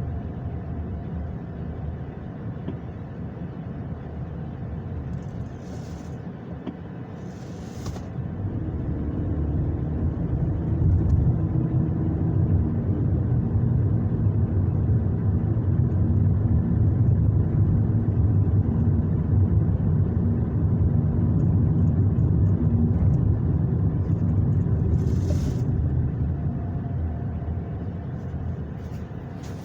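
Low rumble of a car heard from inside the cabin while driving. It swells about a third of the way in, holds steady, and eases off near the end, with a few short hisses along the way.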